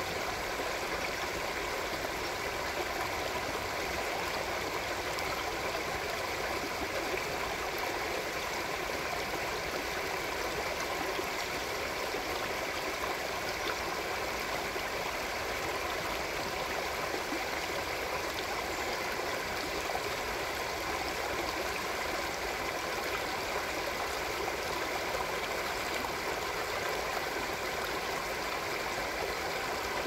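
Small, narrow forest river flowing, a steady, even rush of running water.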